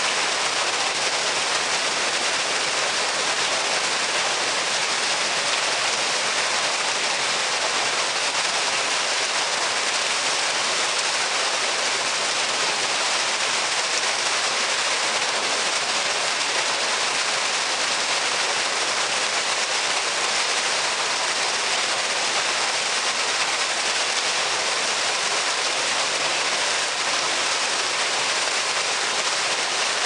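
A single stream of water falling from a stone spout and splashing into a shallow pool: a steady, even rush of falling water.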